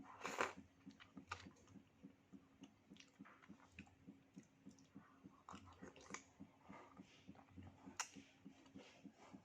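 Quiet close-up mouth sounds of someone eating soft durian flesh: wet smacks and small clicks, with a louder smack about half a second in.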